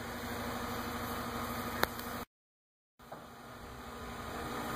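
Engine of the house-moving truck running steadily at idle, with one sharp click a little under two seconds in. The sound cuts out completely for under a second and comes back quieter, then builds up again.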